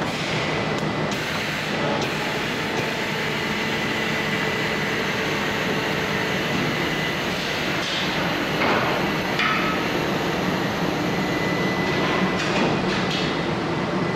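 Kataoka film slitter-rewinder running: a steady mechanical drone with a thin, steady high whine, broken by a few sharp clicks and knocks.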